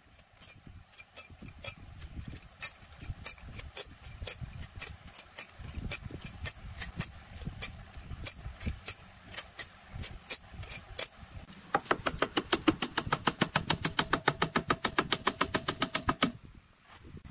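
Hand tools at work on an engine: irregular light clicks and taps, then a fast, even run of clicks, about nine a second, lasting some four seconds from about twelve seconds in.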